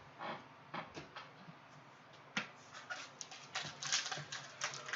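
Trading cards being flipped and slid off a stack one after another, a run of sharp clicks and short rustles that come faster near the end.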